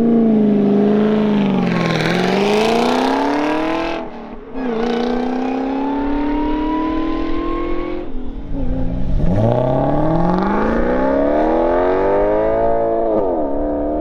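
Ford GT's supercharged V8 launching and accelerating hard through the gears. The engine note climbs steadily in each gear and drops sharply at each upshift, several times over.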